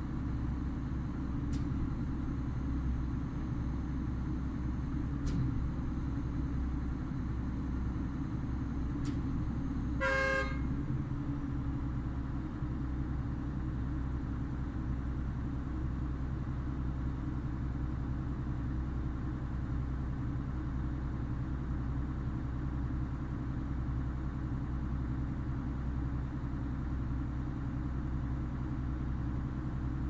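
Steady low rumble of heavy construction machinery engines running, with one short vehicle horn beep about ten seconds in.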